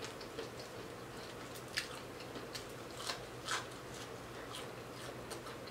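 Crispy fried fish being picked apart with the fingers and chewed: faint, scattered crackles and crunches, a few sharper ones about two and three and a half seconds in.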